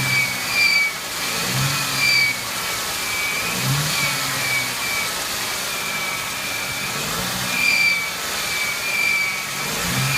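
1999 Ford Mustang 3.8-litre V6 engine running, with a high-pitched squeal from the engine in short, repeated chirps that come and go. The engine speed rises briefly a few times.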